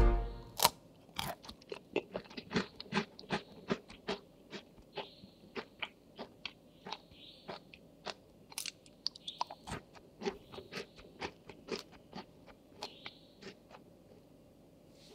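Crisp cheese cat tongue (langue de chat) cookies being bitten and chewed: a long run of sharp, irregular crunches that stops a second or so before the end. Background music fades out at the very start.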